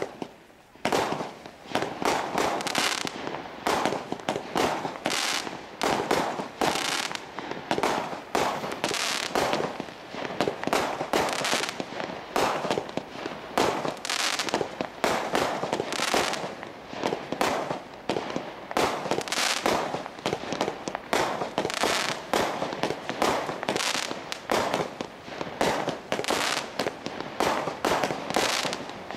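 Diamond Fireworks Imperial 142-shot barrage cake firing, shot after shot in quick succession, about three a second, with no break.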